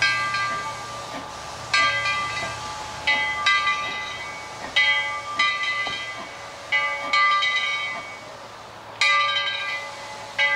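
Steam locomotive's bell ringing, about ten strokes at uneven spacing of a second or so, each stroke ringing on and fading, over a faint hiss of steam.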